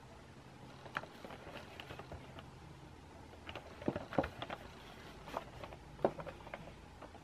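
Handling of a cardboard Funko Pop box: fingers tapping and rubbing on the box as it is turned over, with scattered light knocks, the loudest about four and six seconds in, over a faint low hum.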